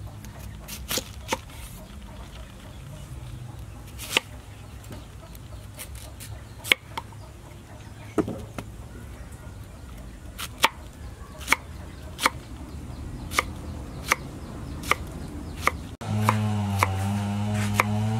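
Kitchen knife cutting through pineapple onto a wooden chopping board: sharp knocks at uneven intervals, roughly one a second. Near the end a loud, steady humming drone with a wavering higher tone cuts in over the chopping.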